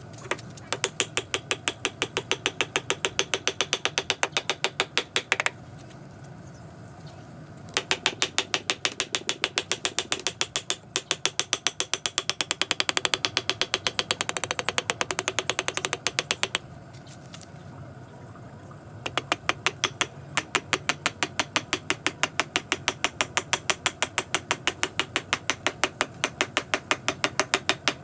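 Rapid, evenly spaced mechanical clicking like a ratchet turning, about five clicks a second, in three long runs that stop twice for a couple of seconds.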